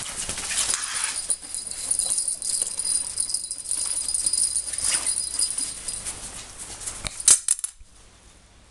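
Small bell on a string toy jingling while a ferret grabs at it, with fabric tunnel rustling; a sharp knock about seven seconds in.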